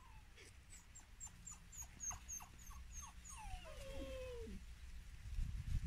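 A dog whimpering: a run of short, falling yelps, then one long whine sliding down in pitch. A low rumble swells near the end.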